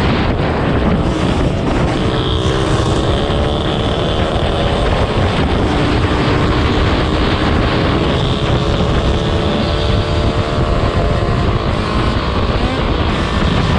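Dirt bike engine running at speed, its note rising and falling with the throttle, under heavy wind buffeting on the microphone.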